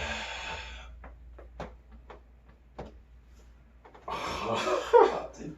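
A long breathy exhale, then a series of short, sharp cracks and pops from the spine as the back is adjusted with a bear-hug lift. About four seconds in comes a louder breathy exhale with a groan.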